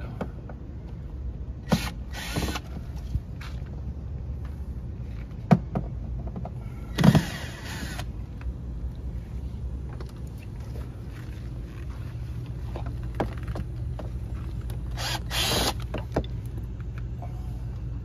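Cordless drill/driver backing out door-hinge screws in three short runs, with sharp clicks and knocks from the screws and the door hardware, over a steady low rumble.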